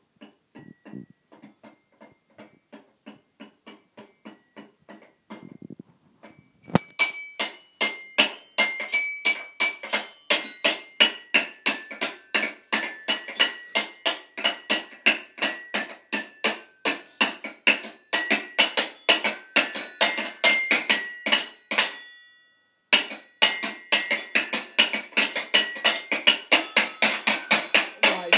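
A child's toy xylophone struck with a mallet in a quick, uneven run of single ringing notes. Soft taps at first, then loud strikes about four a second from about 7 s in, with a short stop about 22 s in before the tapping resumes.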